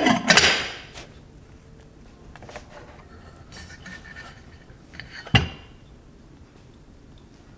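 Stainless steel lid of a gooseneck pour-over kettle set onto the kettle body: two metallic clanks with a brief ring at the start. Light taps and rubbing follow as the kettle is handled, then another sharp metal knock about five and a half seconds in.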